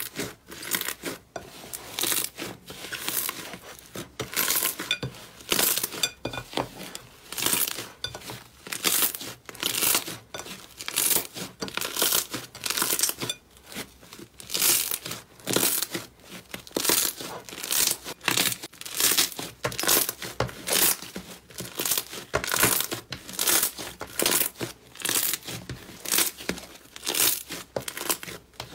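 Thick slime squeezed and pressed by hand, crackling and popping in short bursts, about one to two a second.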